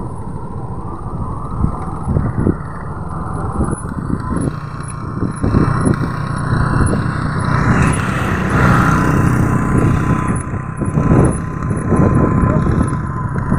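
Motorcycle riding along a road: the engine running steadily under a low rumble of wind buffeting the microphone.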